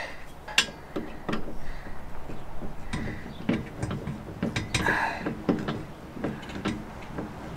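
Scattered light metal clicks and scrapes of Vise-Grip locking pliers working a small nut on a steel headache-rack mounting bracket, tightening it and checking that it is snug.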